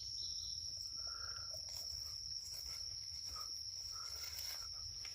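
Insects trilling steadily as one unbroken high-pitched drone, with a faint low rumble underneath.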